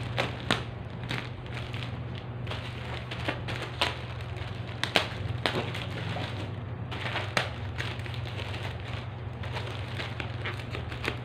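Plastic-wrapped parcel being cut open with scissors: irregular sharp snips and crackling of the plastic wrapping, over a steady low hum.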